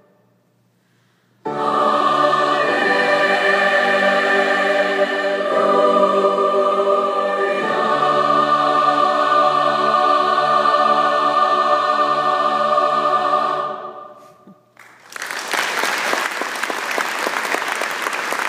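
A large mixed choir comes in after a short silence and holds a final chord, which moves twice before being released about 14 seconds in. Applause breaks out about a second later and carries on.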